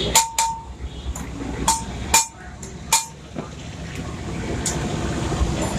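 Sharp metal-on-metal knocks, about five in the first three seconds, several with a short ringing note, over a steady background noise.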